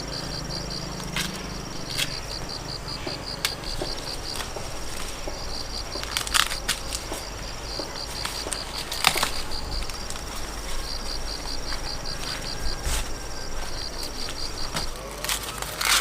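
Insects chirping in a steady, evenly pulsed high rhythm, with a thin continuous high tone behind it. A few short sharp knocks or rustles break in now and then.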